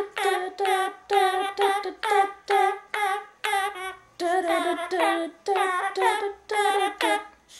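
A woman singing a run of short repeated notes, about two or three a second, each falling in pitch at its end, with a Hahn's macaw singing along.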